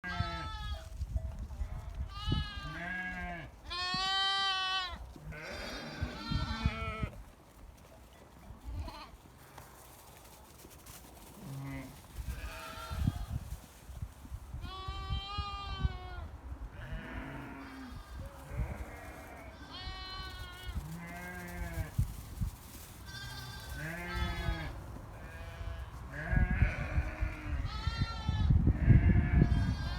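Small livestock bleating: a long run of separate wavering calls, one after another. A low rumbling noise near the end is the loudest sound.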